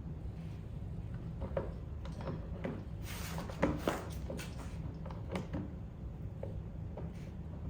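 Scattered clicks and knocks of bolts, washers and metal cart frame parts being handled and fitted by hand, with two sharper knocks about three and a half and four seconds in, over a steady low hum.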